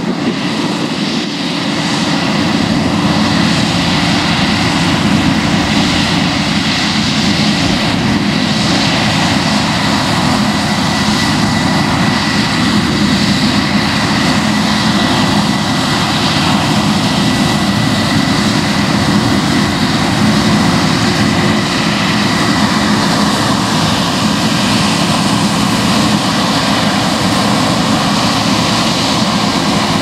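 New Holland CR7.90 combine harvester running at full work while cutting wheat: a loud, steady engine and threshing drone with a thin high whine held through it, growing a little louder about two seconds in.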